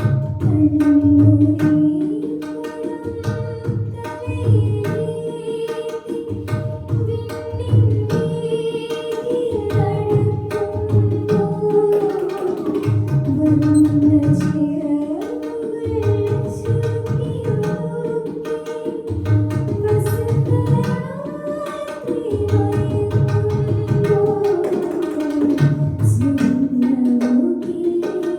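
Indian film-style music: a gliding melody over a steady tabla rhythm.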